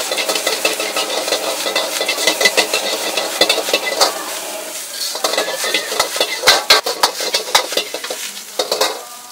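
Metal wok ladle scraping and clacking rapidly against the wok while egg fried rice sizzles as it is stir-fried over a high flame. The strokes slacken briefly about four seconds in and ease off just before the end.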